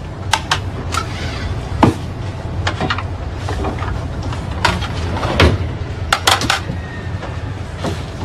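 Tableware being handled and set down: a cup, a coaster and a bottle clinking and knocking on a wooden tray in a dozen or so short sharp clicks, loudest about two seconds and five and a half seconds in, over a steady low hum.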